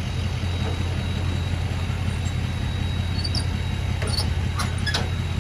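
A vehicle engine idling with a steady low drone, with a few short sharp clicks about four seconds in.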